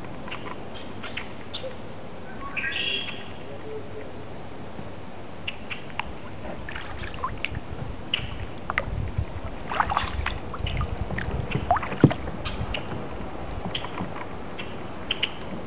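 Kayak paddling: paddle splashes and dripping water over a steady wash, with a low rumble in the middle and one sharp knock about twelve seconds in.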